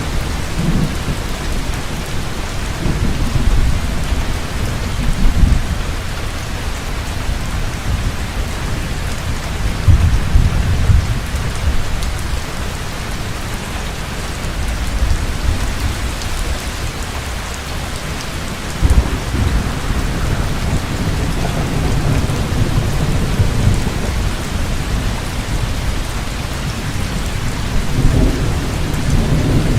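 Heavy rain falling steadily, with thunder rumbling in low swells several times, including a sharp crack about two-thirds of the way through.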